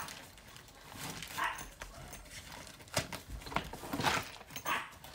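A dog giving a few short barks and whines, with a sharp knock about three seconds in.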